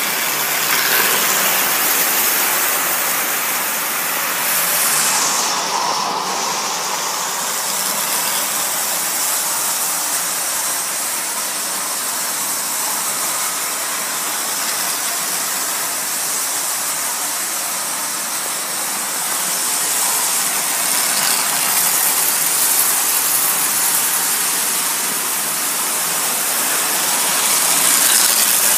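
Marx tinplate toy diesel locomotive in New Haven colours running on tinplate track: a steady whir of its electric motor with wheel noise on the rails, a little louder near the end as it passes close by.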